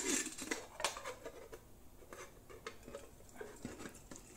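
A sharp metallic clank as the multitool's pliers grab a stainless steel camping pot, then scattered light clinks and knocks of steel on steel as the pot and its strainer lid are lifted and tipped. Near the end a thin stream of liquid starts trickling into a steel mug.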